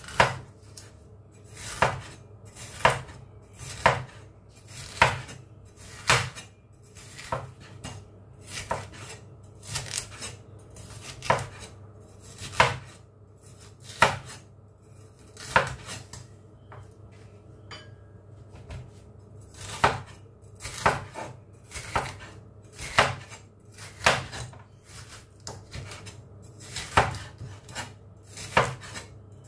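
Chinese cleaver chopping bell pepper on a cutting board: sharp knocks of the blade striking the board, about one a second, with a short pause about halfway through.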